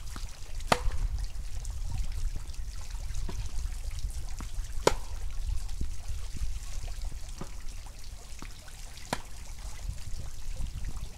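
Tennis ball struck by a Yonex VCORE Tour G racket on groundstrokes: three sharp pops about four seconds apart, with fainter knocks between them, over a low rumble of wind on the microphone.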